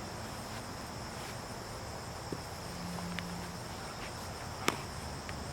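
Crickets chirring in a steady high drone, with one sharp knock near the end.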